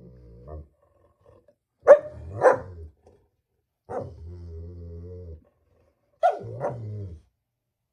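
German shepherd barking and growling at its own reflection in a mirror. A growl trails off at the start, two sharp barks come about two seconds in, then a low, steady growl, and near the end two more barks run into a growl.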